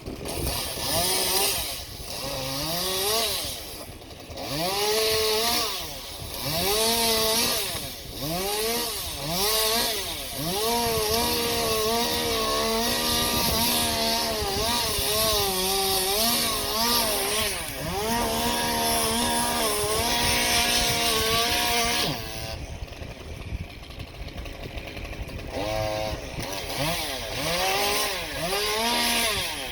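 Two-stroke chainsaw cutting branches. It is blipped up and down in quick revs for the first several seconds, then held near full throttle through a long cut of about twelve seconds. It drops back to idle, then is revved twice more near the end.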